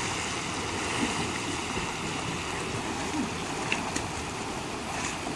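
Stream water rushing steadily over rocks, with a few light splashes near the end from a person moving in the water.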